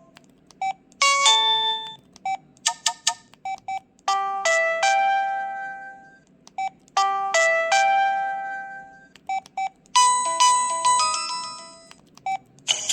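Preloaded ringtone on an LG 220c phone playing through its speaker: a synthesized chime tune of bell-like notes that ring and fade, the phrase starting over about every three seconds.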